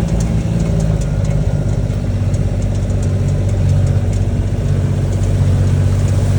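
Vehicle engine running steadily, its note shifting a little about a second in.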